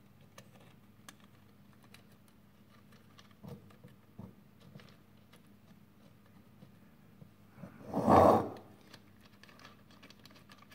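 Small clicks and taps of a 3D-printed plastic mount being handled and pushed onto a CNC spindle motor, over a faint steady low hum. About eight seconds in there is one louder, brief rushing noise.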